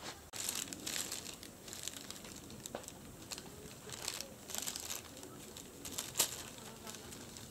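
Thin clear plastic bag crinkling in irregular bursts as a cat shifts about inside it and a sock-covered hand paws at it, the loudest rustle about six seconds in.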